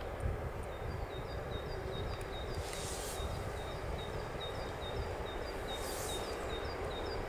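Faint low rumble of an approaching EU07 electric locomotive hauling a container train, still at a distance. Over it a bird repeats a short high chirp about three times a second, and there are two brief hisses, about three and six seconds in.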